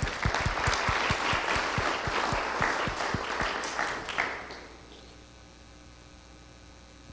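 Audience applauding at the end of a lecture. The clapping thins out and stops about four and a half seconds in, leaving a faint steady hum.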